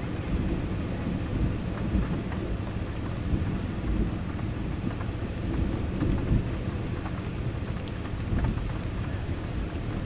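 Low, steady rumble of distant thunder rolling on from an approaching thunderstorm, with a few light scattered ticks.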